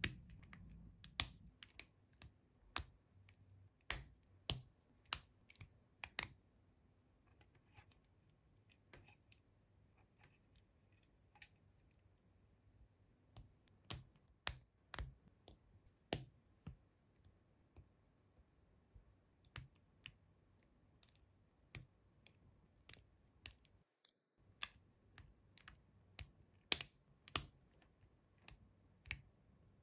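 Irregular sharp clicks and taps, several a second at times, with a quieter gap of several seconds near the first third before the clicking picks up again.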